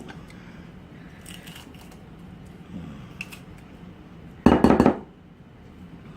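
Kitchen utensils clicking lightly against dishes while a sauce is being made, with one louder half-second clatter about four and a half seconds in.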